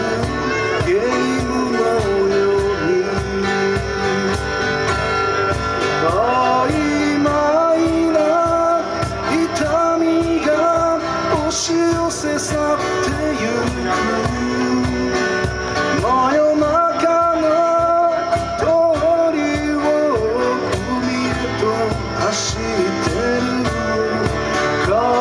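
Live acoustic ballad: two acoustic guitars strummed with a cajon keeping a steady beat, under a male lead vocal line with long held notes.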